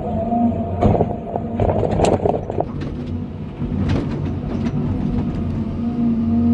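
John Deere 350D excavator's diesel engine running steadily under load, heard from inside the cab, with clattering and scraping as the bucket digs into gravel and stones, about a second in and again around four seconds.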